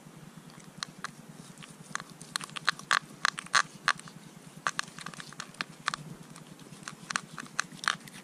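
Knife slitting open a lake trout's belly and the cavity being pulled apart by hand: an irregular run of sharp, wet crackles and clicks of blade and fingers parting skin and flesh, thickest about three seconds in and again near the end.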